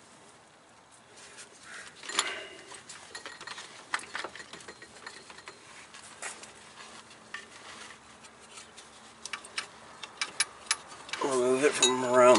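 Scattered light metallic clicks and knocks of tools and hands working around the engine's accessory-belt pulleys while the serpentine belt is taken off. About a second before the end comes a short low vocal sound from the man.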